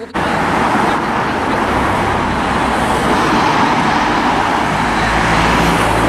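Road traffic: cars driving past on a suburban road, a steady noise of tyres and engines. The low rumble grows near the end as a car comes closer.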